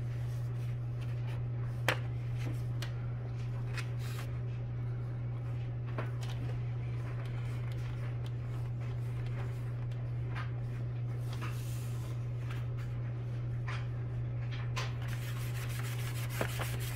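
A steady low hum, with scattered light clicks and taps over it and a brief hiss near the end.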